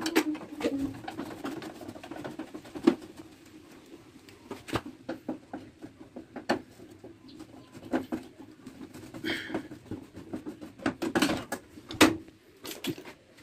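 Screwdriver working the screws out of an air-conditioner outdoor condenser unit's sheet-metal casing: irregular metal clicks, taps and scrapes, the sharpest about 3 seconds in and again near the end.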